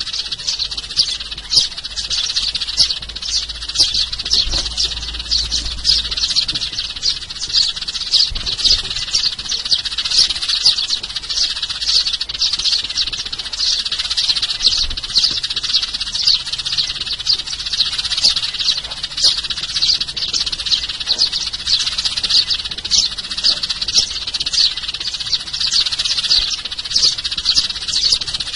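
A flock of sparrows chirping continuously, many quick high chirps overlapping in a dense chorus.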